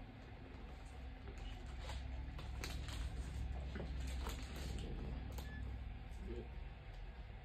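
A steady low hum in a small room, with scattered short clicks and rustles of movement through the middle few seconds.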